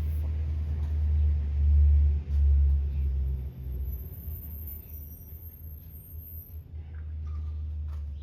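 A low, steady rumble, loudest a second or two in and easing off after about four seconds.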